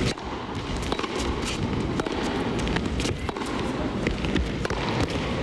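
Tennis rally: a run of sharp pops as racquets strike the ball and it bounces on the court, roughly every half second to second, over low crowd noise.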